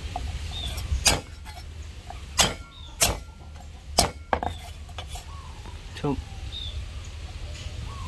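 Cooking utensils clinking and knocking against a pot and dishes: about six sharp knocks spread over several seconds, over a low steady hum.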